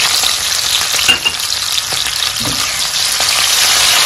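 Shrimp and whole boiled eggs frying in hot coconut oil in a pan: a steady sizzling hiss, with a brief louder crackle about a second in.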